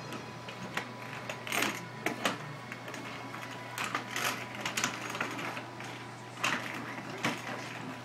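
Children's plastic roller skates knocking and scraping on a hardwood floor in irregular clatters as a toddler shuffles and steps in them.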